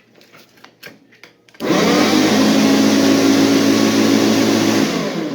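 AL-KO Classic 3.22 SE electric lawnmower test-run: about a second and a half in, the motor starts and the blade spins up at once to a loud, steady run, then near the end it is switched off and begins to wind down. The mower is now driving its blade properly, its torn belt and seized lower blade bearing replaced.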